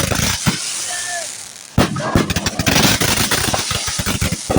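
Consumer fireworks going off: sharp bangs and crackling pops in quick succession, with the crackle growing dense from about two seconds in.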